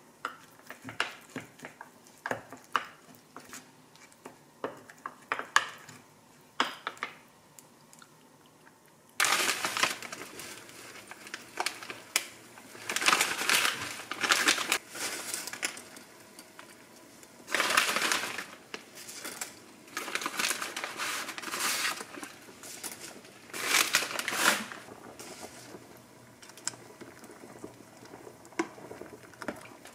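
Kitchen food-prep sounds: first light clicks and taps of a spoon against a small glass bowl as a seasoning sauce is mixed; then, from about nine seconds in, a pot of water on the boil with loud crinkling rustles several times, and a few clicks of tongs near the end.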